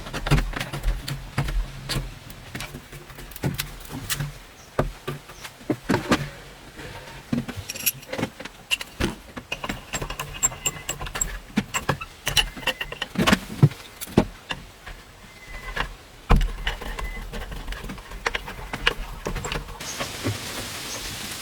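Irregular sharp clicks, knocks and clatter of hand work with building materials, with an even hiss setting in near the end.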